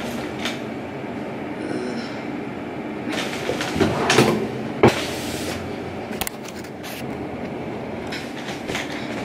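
Camera handling noise as the recording device is adjusted up close: rustling and scraping with several knocks, the loudest clatter about four to five seconds in, along with movement across the bedding.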